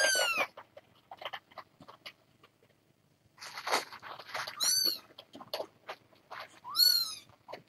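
Kittens meowing: three short, high calls, the first falling in pitch and the last rising then falling, over scattered small clicks and a brief rustle.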